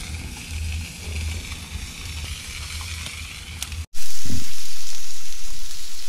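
Raw meat sizzling loudly in a small skillet set on a grill over hot coals, starting abruptly about four seconds in. Before that there is only quieter outdoor noise with a low rumble.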